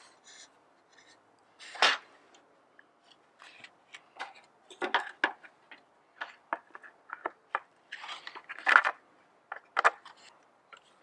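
Irregular clicks, knocks and rattles of a Stihl MS 170 chainsaw's bar, chain and side cover being handled and fitted back onto the saw, with two louder knocks about two seconds in and near nine seconds.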